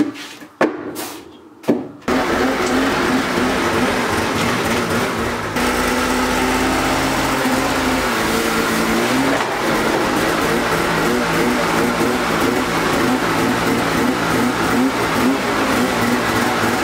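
Ski-Doo Freeride snowmobile's 850 two-stroke twin engine running. After a few short bursts at the start, it runs steadily from about two seconds in, holding an even idle for a few seconds, then revving unevenly as the sled is driven slowly into the garage.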